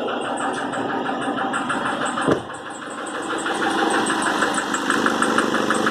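Nissan Frontier 2.5 four-cylinder turbodiesel running with a rapid, even light knock that stays the same as it is revved and released. The mechanic takes the knock to be something other than a connecting-rod knock, since a rod would hammer hard when the throttle is released. There is one sharp click about two seconds in, and engine speed dips and then picks up again.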